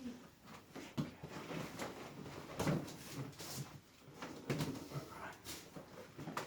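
Rustling and creaking of a patient being moved on a chiropractic treatment table, with several short knocks and clicks during an adjustment.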